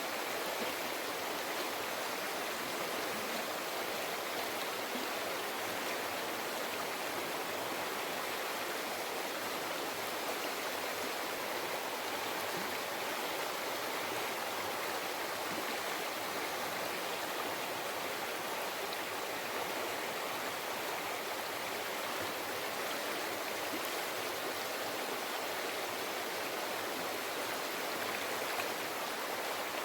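Mountain river flowing over rocks: a steady, even rush and babble of water.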